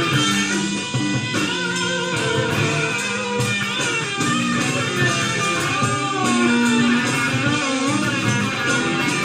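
Live blues-rock guitar improvisation: electric guitar playing a lead with bent and wavering notes over bass guitar.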